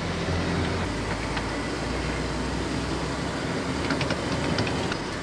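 Car engine and tyre noise heard from inside the cabin while driving: a steady low rumble, with a few faint clicks.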